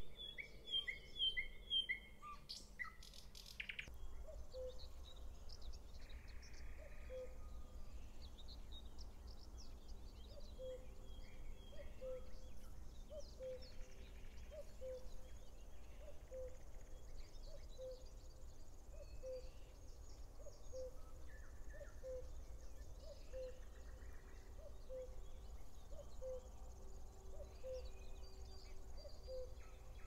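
Spring dawn chorus of wild birds: assorted small birds chirping and singing, with a quick run of high chirps at the start. From about four seconds in, a low hooting bird note repeats about every second and a half.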